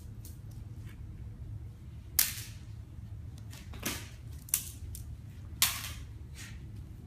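Four sharp slaps on a hard tile floor, irregularly spaced over about three and a half seconds, as the children's hands or a small toy strike the tiles, over a low steady hum.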